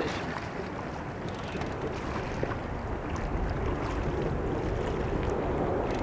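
Wind blowing on the microphone over lapping river water, with faint splashes from a hooked blue catfish thrashing at the surface beside the boat.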